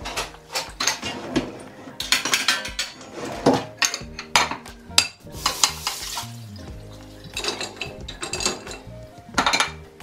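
Dishes, pans and cutlery clinking and clattering against one another and the wire racks as a dishwasher is loaded, a string of short sharp knocks. Soft background music with held notes plays underneath.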